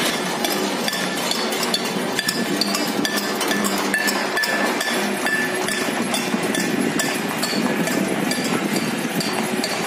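Many people on the surrounding balconies and rooftops clapping and banging metal plates and utensils, with bells ringing. The result is a dense, continuous clatter of claps and metallic clinks, with short ringing tones through it.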